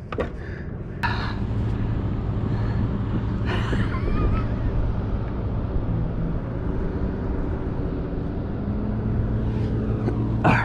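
A motor running with a steady low hum over wind and water noise, with a single knock about a second in.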